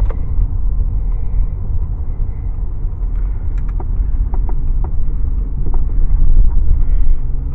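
Car driving, heard from inside the cabin: a steady low rumble of engine and road. A few light clicks or rattles come in about the middle.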